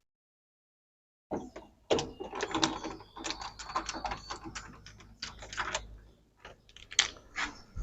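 Dense, irregular clicking and rattling of plastic and metal parts as a washing machine's top cover is fastened back in place with screws. It starts after about a second and a half of silence.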